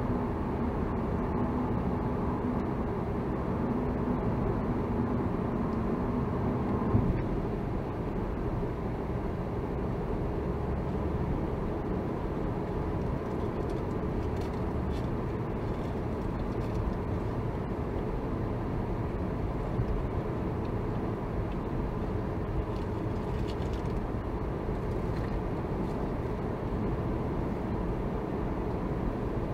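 Steady engine and road noise of a car driving, heard from inside the cabin. A steady hum underneath stops suddenly about seven seconds in, with a short bump as it cuts out.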